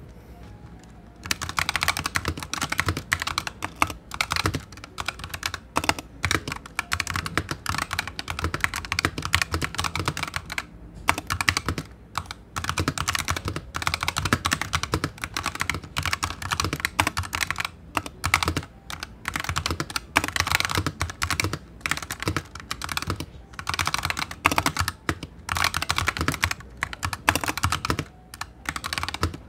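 Fast typing on a Razer Huntsman TE mechanical keyboard fitted with new pudding keycaps. A rapid stream of key clacks starts about a second in and goes on with a few brief pauses.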